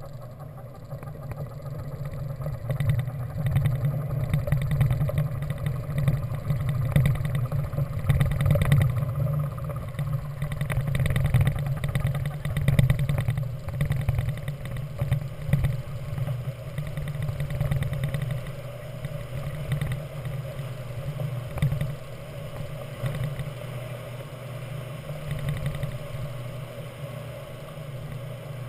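Cockpit noise of a Grob 103 glider on its aerotow takeoff roll: the single main wheel rumbling and rattling over the concrete runway with rising wind and airframe noise. The rumble eases to a smoother rush in the last several seconds as the glider lifts off.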